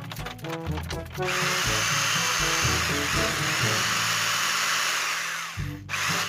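Corded electric drill boring a hole through a metal pipe. It starts about a second in, runs steadily, and stops near the end, over background music.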